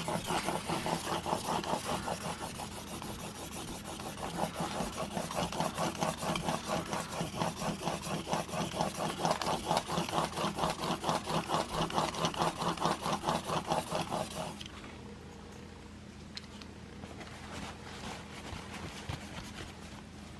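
Sirius Evolution single-bevel broadhead drawn back and forth across a 2000-grit diamond sharpening plate in a roller guide. It makes a rhythmic rasping rub at about three strokes a second, which stops about fourteen seconds in.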